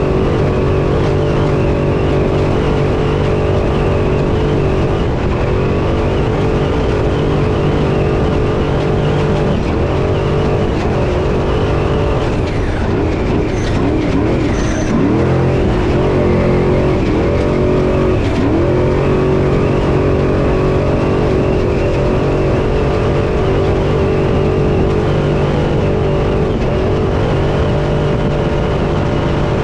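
Off-road race truck's engine heard from inside the cab, running hard at a steady pitch. Its pitch dips and climbs several times near the middle as the throttle is lifted and reapplied, then it settles back to a steady pull.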